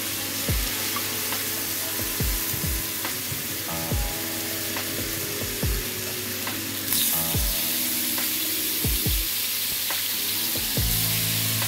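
Chicken drumsticks sizzling on a hot ridged grill pan, a steady hiss that flares louder about seven seconds in as another raw drumstick is laid on the grate. Background music with a regular beat plays underneath.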